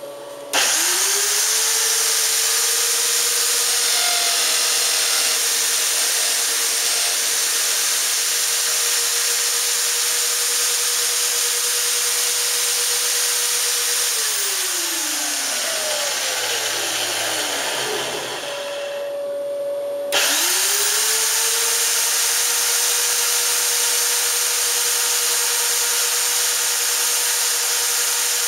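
Three electric drills ganged on a homemade CNC router, used to drill shelf holes, start and spin up to a steady pitch with a loud motor hiss. About 14 s in they are switched off and wind down over a few seconds. A short steady tone follows, and about 20 s in the drills start again and spin up to the same pitch.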